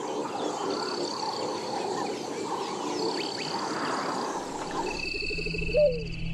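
A dense chorus of wild animal calls, mostly frog-like croaking with short high chirps over it. About five seconds in, low steady music comes in underneath.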